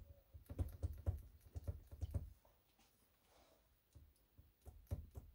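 Faint, quick metallic clicks and light knocks from the compound slide and vise of a small combination lathe as it is worked back and forth by hand. The clicks come from rocking through the play in its feed screw and nut: backlash. There is a short pause in the middle, then the clicking starts again.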